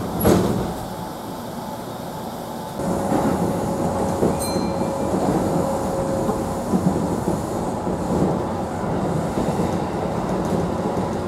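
A single thump right at the start as the electric train's sliding doors finish closing, then after about three seconds the train sets off and runs, its running noise rumbling inside the carriage, with a steady whine for a few seconds as it gets under way.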